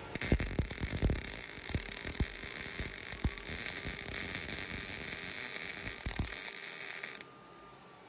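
MIG welder arc running a weld bead: a steady crackling hiss with several louder pops. It cuts off suddenly about seven seconds in when the trigger is released.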